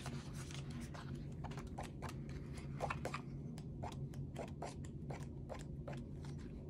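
Paper sticker sheets in a sticker book being handled and flipped through: light, irregular crinkles and clicks of paper.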